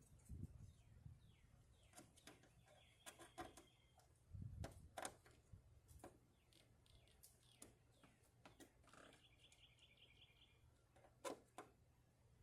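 Faint bird chirps and two short trills in the background, with a few sharp clicks and knocks, the loudest about five seconds in and near the end.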